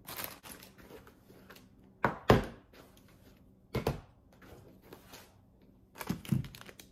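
Plastic-packaged groceries being handled and set down on a kitchen counter: crinkling plastic and a few knocks, the loudest about two seconds in and another pair near the end.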